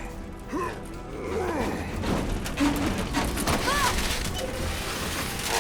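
Cartoon action soundtrack: music under crashing and rumbling sound effects that thicken about two seconds in, with a few short vocal cries.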